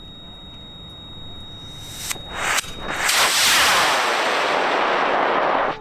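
A high-power rocket's solid-fuel motor launching. Two sharp cracks come about two seconds in, then the loud rushing roar of the burn lasts nearly three seconds and cuts off abruptly.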